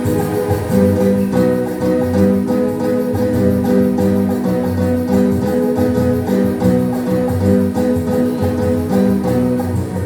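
Instrumental music with no voice: sustained pitched notes over a steady, pulsing bass line.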